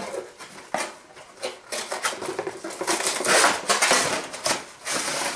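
Cardboard box and plastic toy packaging being handled: irregular clicks, taps and rustling, with a longer crinkling rustle about three to four and a half seconds in.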